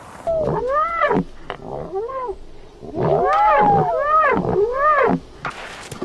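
Animal cries from an animated creature sound track: about six drawn-out calls, each rising and then falling in pitch, some overlapping, loudest in the middle.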